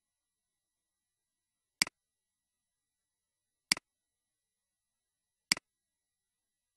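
Three computer mouse clicks about two seconds apart, each a quick double tick as the button is pressed and released, with silence between them.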